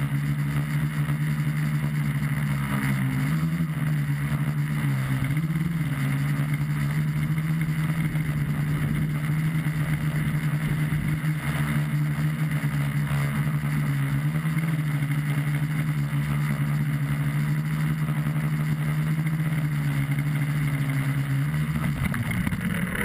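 A multirotor tricopter's three brushless motors and propellers humming steadily, heard from the onboard camera, with a rushing air noise and small pitch wobbles as the throttle is adjusted. Near the end the pitch falls and the hum dies away as the motors spin down on landing.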